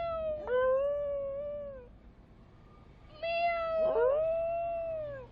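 Indian Spitz dog howling: two long, high, wavering howls of about two seconds each. The first is already under way and ends about two seconds in. The second starts just past three seconds in. Each one breaks suddenly in pitch partway through.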